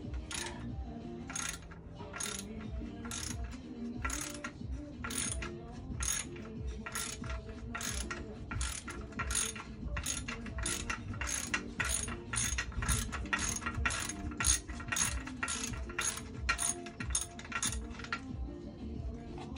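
Hand socket ratchet clicking as it is worked back and forth to loosen the 16 mm bolts holding the lower unit (gearcase) of a Mercury XR6 outboard. The strokes go at about one a second at first, quicken to about two a second, and stop near the end.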